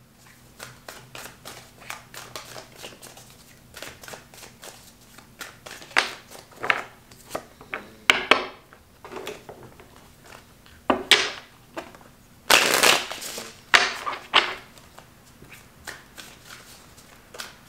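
A tarot deck shuffled by hand: cards slipping and snapping against each other in quick, irregular soft clicks, with a few louder flurries, the loudest about two-thirds of the way through.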